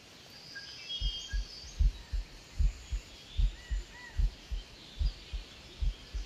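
Low, dull thumps in pairs, about one pair every 0.8 s like a heartbeat, with small birds chirping now and then in woodland.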